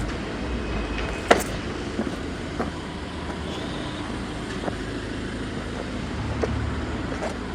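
Steady low outdoor rumble like distant road traffic, with a few scattered short knocks, the loudest about a second in.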